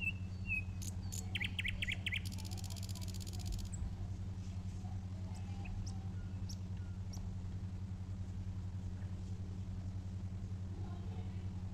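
Birds chirping in the background: a few short calls, then a fast trill about a second and a half in, followed by a buzzy high call and scattered faint chirps, over a steady low hum.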